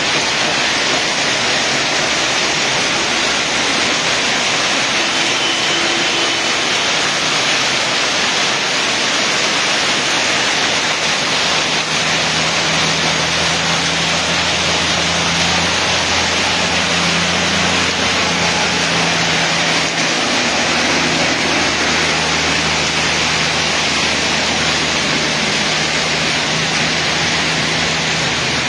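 Heavy rain mixed with hailstones pelting down, a loud, steady, dense hiss. A low hum joins in for several seconds in the middle.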